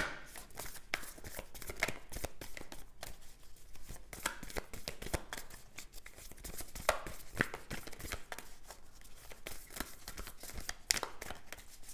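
A deck of tarot cards being shuffled and handled: a stream of irregular small clicks and rustles of card against card.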